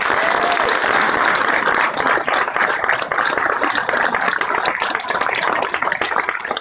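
Audience applauding: loud, steady clapping from a roomful of people.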